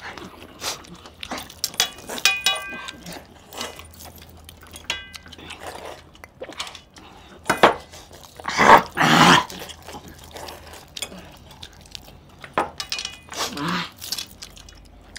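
Noisy eating of chicken curry by hand: chewing and sucking on meat and bones, with scattered clicks and a louder burst of wet noise about nine seconds in.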